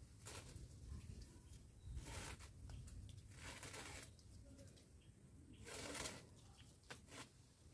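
Faint rustling and scraping in short bursts as the tree's branches and leaves are handled, with two sharp clicks near the end.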